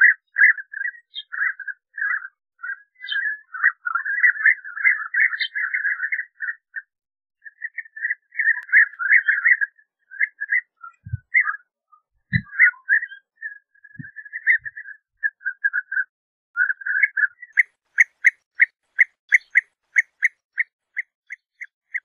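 European bee-eaters calling: many rolling, trilled 'prruip' calls overlapping at first, then thinning out. A few low thumps come in the middle. Over the last few seconds a single bird repeats a short call about twice a second.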